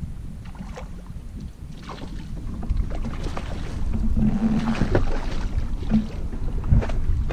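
Steady low rumble of wind and water around a small fishing boat, with a few scattered short knocks or splashes and a brief low hum around the middle.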